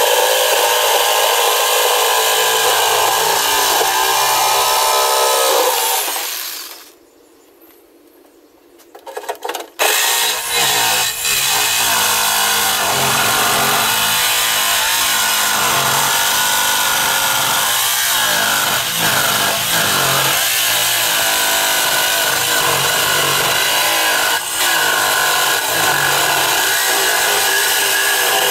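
Corded jigsaw cutting a round speaker hole through the steel wall of an ammo can, the blade chattering steadily. It stops about six seconds in, is quiet for about three seconds, then starts again and cuts on.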